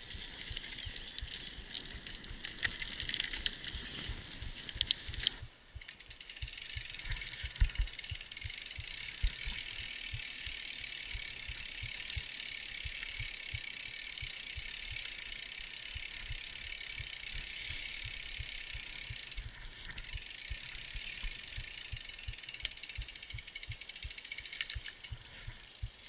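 Mountain bike rolling over a gravel road and dirt trail: a steady hiss of tyres on loose stones, with irregular knocks and rattles from the bike over bumps.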